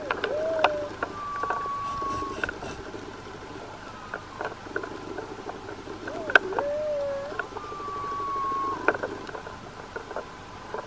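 Humpback whale song heard underwater: a wavering lower moan followed by a long, steady, slightly falling higher tone, the phrase sung twice about six seconds apart. Scattered sharp clicks sound throughout.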